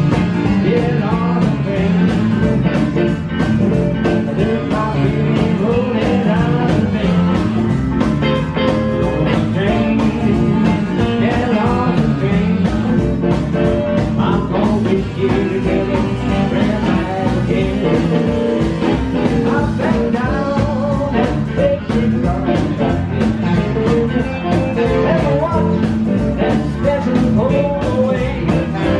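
Live band playing a swinging blues/rock-and-roll number on stage piano, upright bass, electric guitar and drums, with a steady beat.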